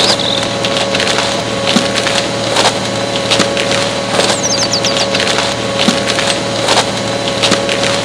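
A small electric motor humming steadily at one pitch, with irregular sharp cracking and snapping over it.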